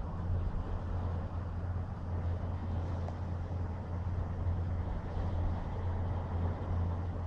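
Ocean surf washing onto a sandy beach: a steady low rumble with an even hiss of water over it.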